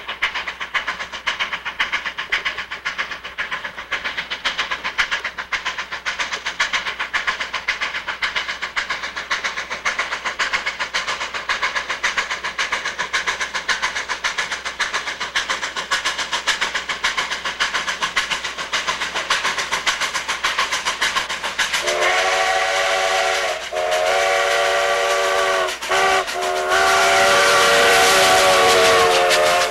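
Sierra Railway No. 28, a 2-8-0 steam locomotive, working hard up a grade with a quick, even exhaust beat. Over the last eight seconds its steam whistle sounds four blasts, long, long, short, long: the signal for a grade crossing.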